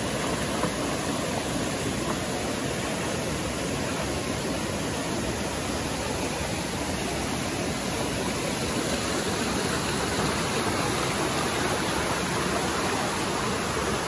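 Steady rushing of a waterfall and a shallow river flowing over rocks.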